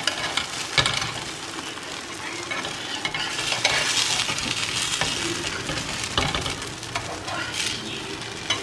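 Rava dosa sizzling in oil on a hot tawa, while a steel spatula scrapes under it and clicks against the pan several times as it loosens and folds the crisp dosa.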